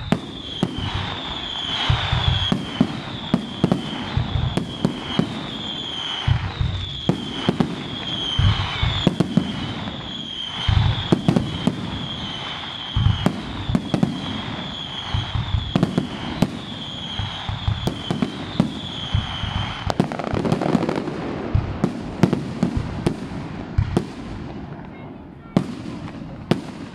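Fireworks display: a rapid barrage of aerial shells bursting with sharp bangs and crackle, several a second at times, thinning out near the end. A high-pitched tone repeats about every two-thirds of a second through the first twenty seconds.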